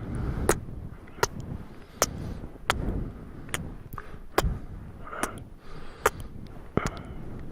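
Close-miked kissing and lip-smacking mouth sounds: sharp wet smacks at an irregular pace, about one or two a second, with breathy low rustle between them.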